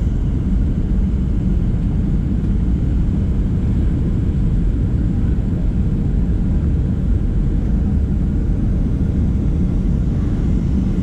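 Steady low rumble of engine and airflow noise inside the cabin of a Boeing 737-700 airliner on final approach. About ten seconds in, a steady hum near the bottom of the rumble grows stronger.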